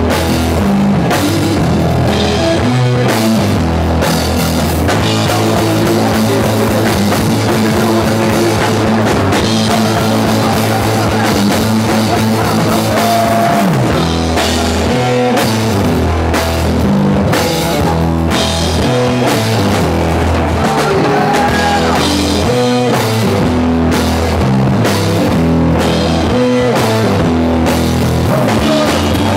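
Live rock band playing: electric guitars over a drum kit, loud and steady throughout.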